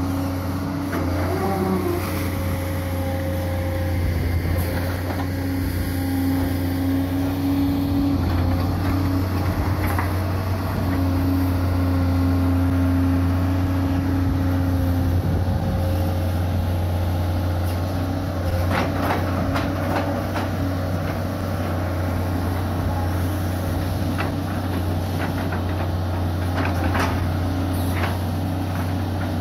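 Hitachi UH045-5 long-reach hydraulic excavator running under work: a steady low diesel hum with a whine that comes and goes in the first half as the hydraulics move the boom and bucket. Several sharp knocks come about two-thirds of the way through and again near the end.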